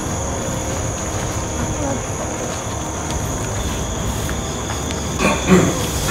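Steady high-pitched chirring of night insects over a constant low rumble, with a brief murmured voice about five seconds in.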